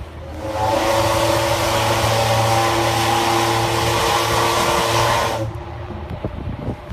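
Steam whistle of the icebreaker Stettin blowing one long blast of about five seconds: a chord of several steady tones over loud steam hiss, cutting off suddenly.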